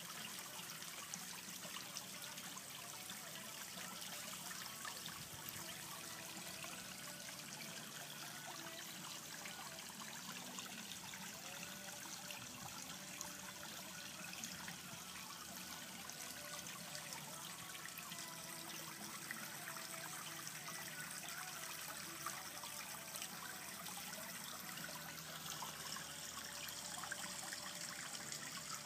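Water trickling steadily in a backyard pond, a faint, even hiss.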